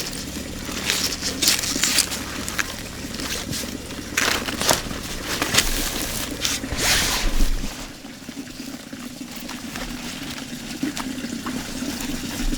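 Water pouring and splashing in irregular surges over a steady low hum.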